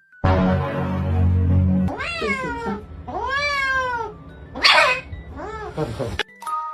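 A cat giving three drawn-out yowling meows, each rising and then falling in pitch, the middle one the longest, with a short hissy burst between the second and third. The meows follow a couple of seconds of steady low hum.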